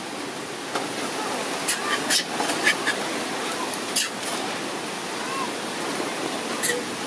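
A few sharp clatters and knocks from handling a wire pet cage and its plastic floor tray while clearing it out, over a steady hiss.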